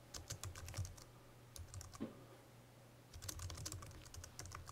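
Typing on a computer keyboard: a fast run of keystrokes, a pause of about two seconds, then another quick run of keystrokes near the end.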